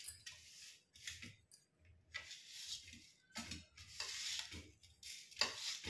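A steel spoon scooping nigella seeds and tipping them into a glass bowl: a run of about six short scrapes and seed rattles, a second or so apart.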